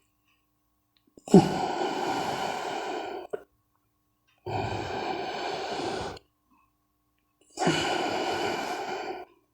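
A man taking slow, deep, audible breaths for a chest-expanding breathing exercise, drawn in through the nose and let out again. There are three long breath sounds of about two seconds each, separated by short silences.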